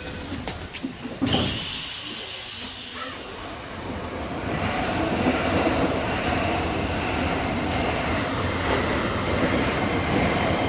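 Keisei 3050-series electric commuter train heard from inside a car, starting off and picking up speed. A sudden burst of noise about a second in is followed by a steadily building inverter whine and motor noise over rail noise from about four seconds in.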